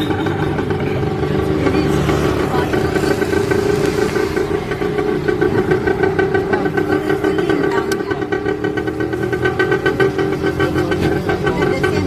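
Engine of a tuk tuk taxi running steadily under way, heard from inside its open passenger cab.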